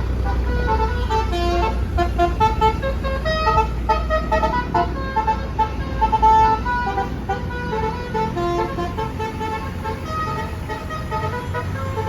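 Indonesian tour bus 'telolet basuri' musical horn playing a quick tune of short, pitched notes, over the low rumble of the bus engine.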